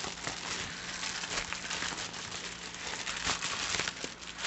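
Plastic bubble mailer crinkling and rustling as it is handled, with many small crackles.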